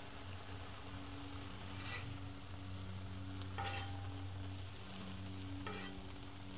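Ham slices sizzling steadily on a Blackstone griddle's steel flat-top over a steady low hum. A metal spatula scrapes and clicks against the griddle three times as the slices are flipped.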